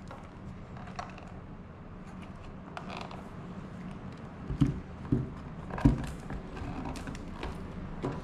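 Handling sounds of a small stitched watch box as its inner tray is slid out of the sleeve: rubbing and creaking, with three dull knocks just past the middle, over a steady low hum.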